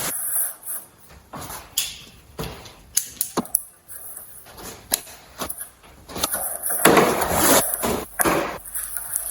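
Rustling of packaging and knocks of parts being handled as a CNC router kit is unpacked: irregular scuffs and clicks, heaviest about seven to eight seconds in, over a steady high hiss from a faulty microphone.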